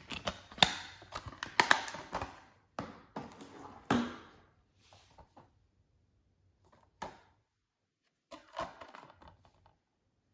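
Clear plastic Blu-ray case being handled: a quick run of plastic clicks and rattles as the disc is worked on its centre hub and the case is shut, a single click about seven seconds in, and a short burst of plastic handling near the end.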